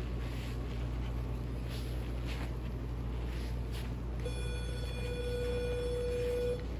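E-collar sound-box beep: one steady high tone that starts about four seconds in and holds for a little over two seconds while the stimulation button is kept pressed. It signals that a low-level (level 4) stim is being delivered to the dog's collar. A steady low hum runs underneath.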